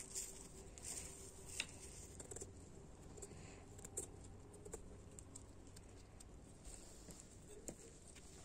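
Faint knife-on-eggplant peeling sounds: a kitchen knife slicing and scraping off eggplant skin, with a few scattered sharp ticks of the blade.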